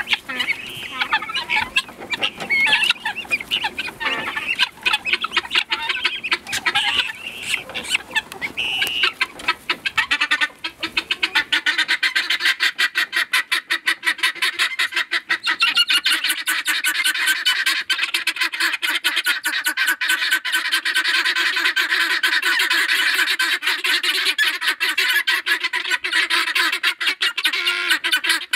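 A flock of domestic helmeted guineafowl calling: scattered harsh cries at first, then from about eleven seconds in a fast, unbroken rattling chatter of many birds at once.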